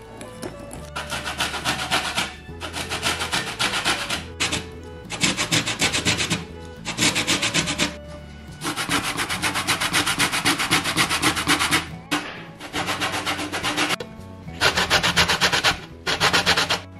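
Lemon rind grated on a stainless-steel box grater: a dry rasping in runs of quick strokes, broken by short pauses, as the zest is taken off.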